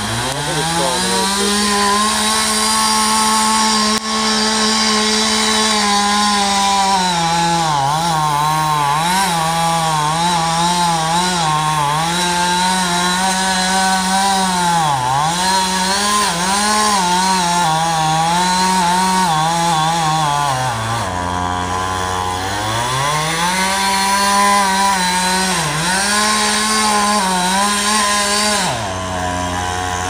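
Two-stroke chainsaw cutting into a cottonwood trunk at full throttle, its pitch dipping and recovering over and over as the chain bogs in the wood. It drops to idle briefly about two-thirds of the way through, revs back up into the cut, and falls to idle again near the end.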